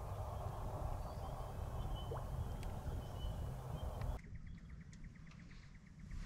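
Outdoor bush ambience: faint bird calls over a low rumble. About four seconds in it cuts to a quieter scene with a rapid, even ticking and a few sharp clicks.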